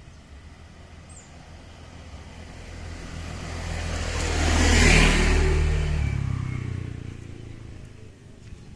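A car driving past. Its engine and tyre noise swell to a peak about five seconds in, then fade, and the engine note drops in pitch as it goes by.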